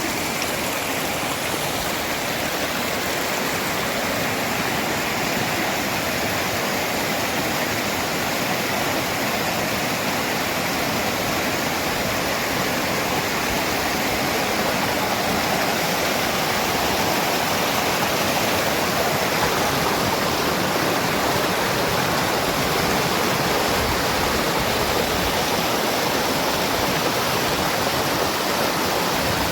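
Waterfall: water falling and rushing steadily.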